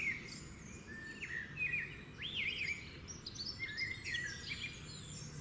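Several small birds chirping and whistling over one another in quick, rising and falling calls, over a steady low background noise.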